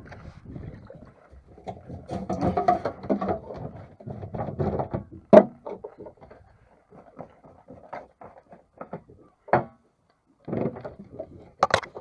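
Irregular knocks and clatter of gear being handled aboard a small fishing boat, with a sharp knock about five seconds in and further single knocks near the end.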